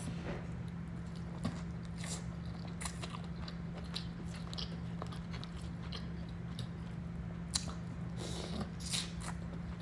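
Close-miked chewing and biting of king crab leg meat: scattered wet smacks and clicks, with a steady low hum beneath.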